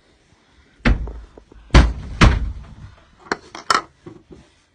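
A door being banged shut: three heavy thumps about half a second apart, then a few lighter knocks and rattles near the end.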